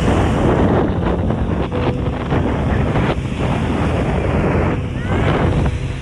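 Strong wind buffeting the microphone over small lake waves washing and breaking on the sand.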